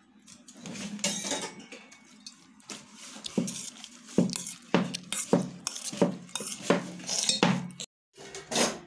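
Steel spoon stirring and scraping fried boondi through sugar syrup in a steel pot, in a series of metal-on-metal scrapes and clinks about two a second, cut off abruptly near the end.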